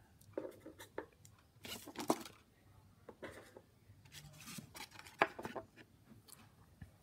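Pokémon trading cards and their foil booster-pack wrapper being handled: a series of short papery rustles, slides and scrapes, about half a dozen brief bursts with quiet gaps between.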